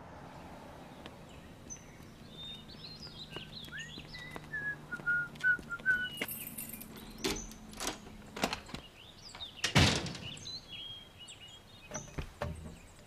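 Birds chirping in short, darting calls, followed from about seven seconds in by a few scattered thuds, the loudest a little before ten seconds and two more near the end.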